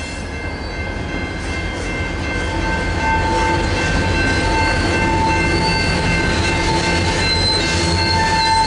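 Freight train's covered hopper cars rolling past with their wheels squealing: a steady, piercing high squeal comes in about two and a half seconds in and grows louder over the low rumble of the wheels on the rails.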